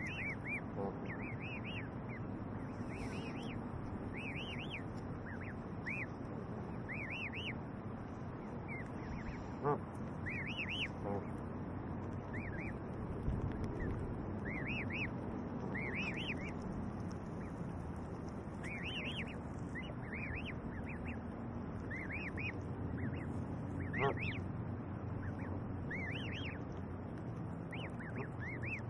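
Canada goose goslings peeping: short, high, arching peeps in quick clusters, over a steady low background noise.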